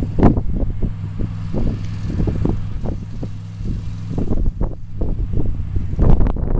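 FWD 6x6 dump truck's engine running steadily as the truck drives, with wind buffeting the microphone in repeated gusts.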